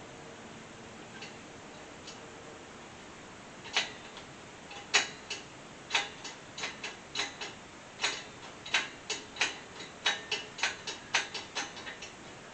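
Irregular sharp clicks and clinks of small metal parts being handled, beginning about four seconds in after a stretch of low hum.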